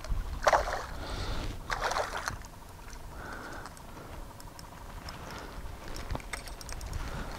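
A hooked smallmouth bass splashing at the surface beside the boat, two short splashes about half a second and two seconds in, then water lapping against the boat hull.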